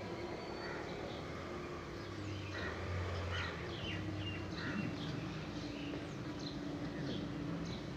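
Small birds chirping: short, high, falling calls repeated many times, over a faint steady hum.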